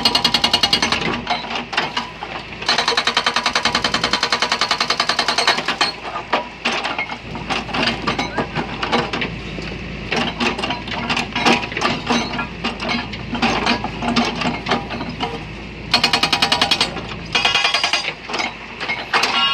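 Hydraulic breaker hammering a reinforced concrete block, in runs of rapid, evenly spaced blows lasting a second to three seconds, with irregular single knocks in between.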